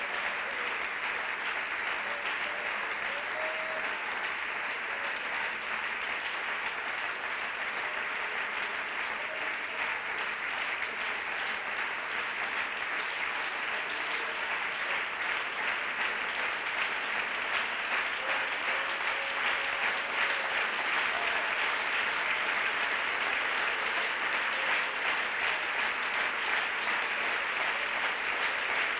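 Church congregation applauding continuously in sustained praise clapping, growing somewhat louder in the second half.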